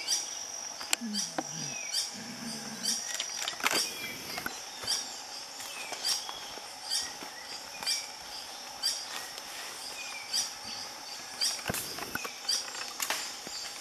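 Green hermit hummingbird singing a short, high note repeated about once a second, over a steady high insect hum.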